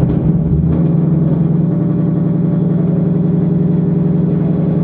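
Ford Mustang engine idling steadily, just after being started.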